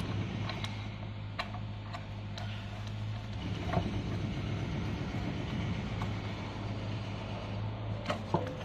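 Scattered light clicks and taps of a black metal lamp bracket being handled and fitted against a wooden base, over a steady low hum.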